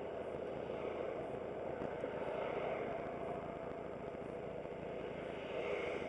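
Aprilia SportCity scooter's engine idling steadily while stopped at a junction, with road traffic passing; a vehicle goes by close near the end.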